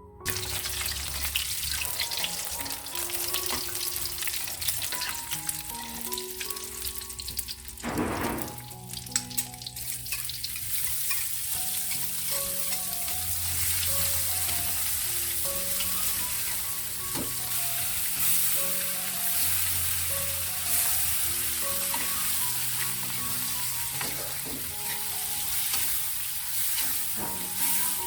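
Food sizzling as it fries in hot oil in a pan, stirred now and then. The sizzle grows louder about ten seconds in. Background music with a simple melody plays throughout.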